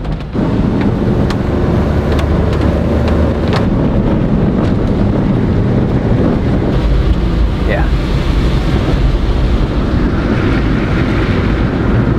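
Japanese mini truck heard from inside the cab while driving: a steady engine and road noise with a deep low rumble, and a few light ticks in the first few seconds.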